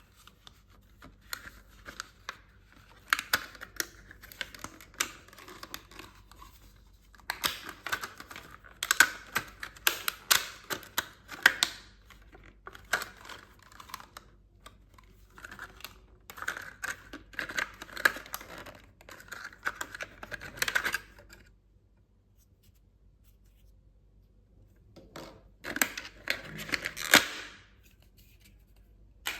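Hands unpacking a toy playset: crinkling plastic packaging and small plastic parts clicking and tapping, in bursts of a few seconds with quiet pauses between, including a longer pause in the last third.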